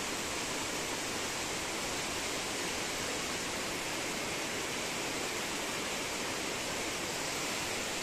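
Small rocky forest stream cascading down over boulders in a little waterfall: a steady, even rush of water.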